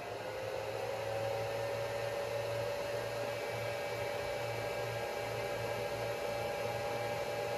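Cooling fan of an Anker PowerHouse II 400 portable power station running while its inverter supplies about 100 W: a steady whirring hiss with a low hum, its pitch rising briefly at the start and then holding.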